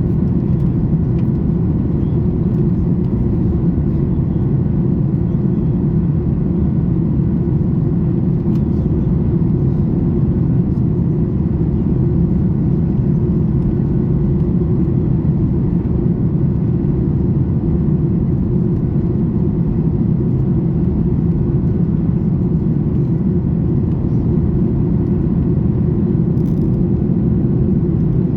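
Steady low rumble of cabin noise inside a Boeing 737 MAX 8 in flight: air rushing over the fuselage and the drone of its CFM LEAP-1B engines, even throughout.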